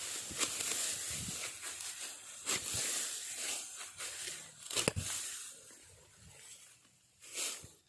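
Dry rice stalks rustling and swishing, with four sharper strokes about two and a half seconds apart.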